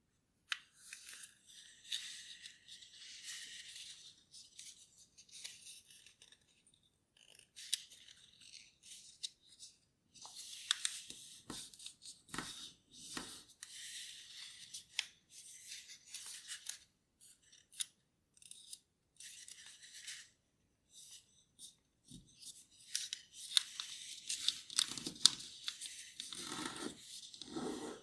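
Thin origami paper being folded and creased by hand: start-stop rustling and crinkling with sharp little clicks as creases are pressed. It gets fuller and louder in the last five seconds.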